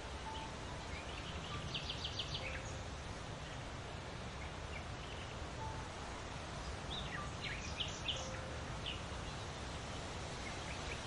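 Songbirds calling over a steady background noise: a quick run of high chirps about two seconds in and another cluster of chirps later on, with a few short, lower single notes between them.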